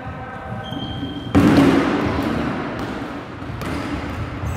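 Dodgeballs hitting the hardwood floor and walls of a gym, with one loud thud about a second and a half in that echoes around the big hall, and a few lighter knocks after it.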